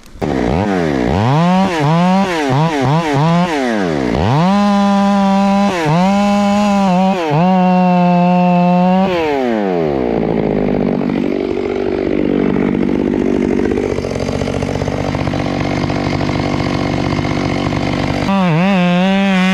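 Two-stroke chainsaw revved in several quick blips, then held at full throttle with short dips. About ten seconds in it drops in pitch and runs rough under load for some eight seconds as it cuts into wood, then revs free again near the end.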